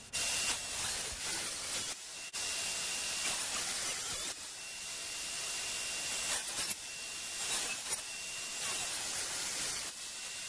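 Portable table saw running with its blade tilted to 45 degrees, cutting bevels on plywood panels: a steady hissing noise with a faint high whine that comes and goes, breaking off abruptly several times.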